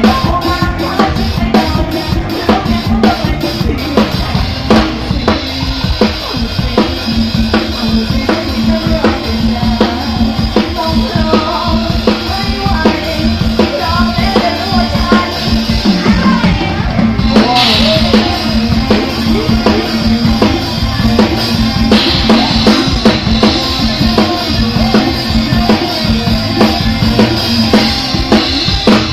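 Loud amplified dance music from a stage band over the sound system, driven by a steady drum-kit beat with bass drum and snare. A brighter, hissing wash comes in about two thirds of the way through.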